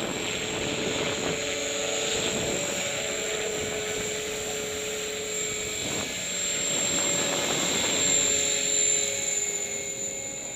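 Align T-Rex 500 RC helicopter in flight: the steady high whine of its motor over the drone of the rotor blades, growing louder about eight seconds in, then fading near the end.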